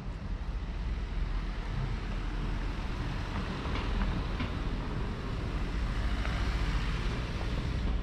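Outdoor town-street ambience: a steady low rumble with a few faint, brief higher sounds about halfway through and again near the end.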